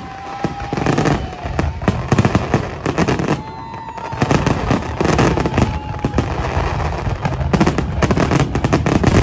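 Fireworks going off in rapid, dense succession, a near-continuous run of crackles and pops with a brief lull about three and a half seconds in.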